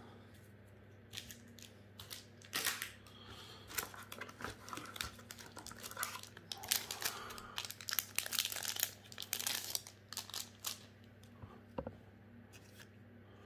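Foil wrapper of a Magic: The Gathering booster pack crinkling and tearing as it is opened, in a run of crackles that is heaviest about six to ten seconds in.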